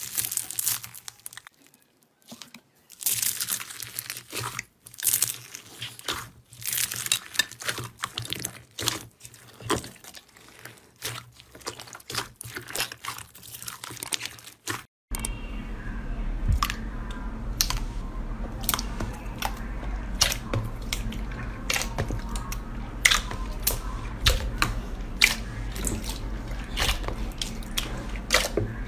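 Slime being squeezed, stretched and pressed by hand, making crackling, crunching bursts and sharp sticky popping clicks. About halfway through the sound changes abruptly: a steady low hum sits under a denser run of popping clicks.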